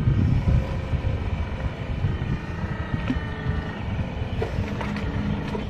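Electric motors of a 1:12 scale radio-controlled excavator whining steadily as the long boom swings round and lifts a bucket of mud, with a few light clicks. A low rumble of wind on the microphone runs underneath.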